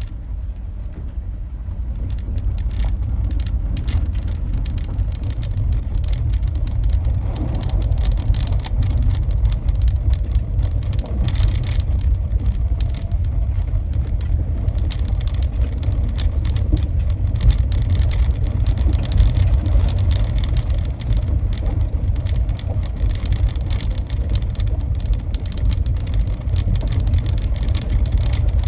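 Car driving on a gravel road, heard from inside the cabin. A steady low engine and road rumble runs throughout, with frequent small clicks and knocks.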